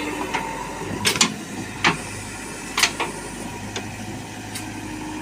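Backhoe loader's diesel engine running steadily, with a handful of sharp knocks and clacks, a pair about a second in, then single ones a little before two seconds and just before three seconds.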